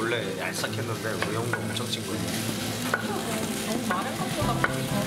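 Fried rice sizzling on a hot stone griddle while two wooden spatulas stir and scrape it in quick, irregular strokes.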